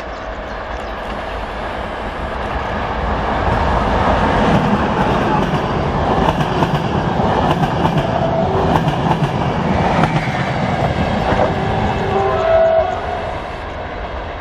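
Electric-hauled passenger train passing close by. The rumble builds as it approaches, the coaches clatter over the rail joints as they go past, and the sound drops away near the end as the train recedes. A short high tone sounds just before the drop.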